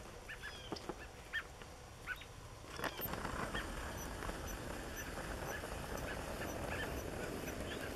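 A winter flock of American robins calling with short, sharp chirps, scattered and repeated. About three seconds in, a steady rushing noise joins them and lasts nearly to the end.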